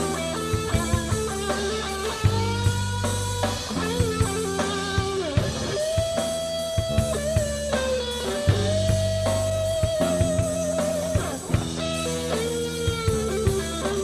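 Rock band playing live: a lead guitar holds long notes with bends and vibrato over held bass notes and steady drum hits.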